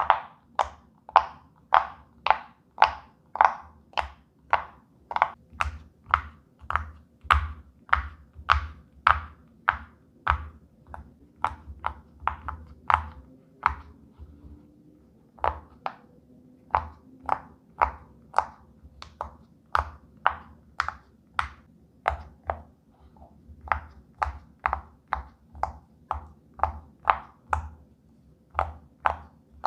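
Silicone pop-it fidget toy bubbles pushed through one after another: a steady run of sharp pops, about two a second, with a short pause near the middle.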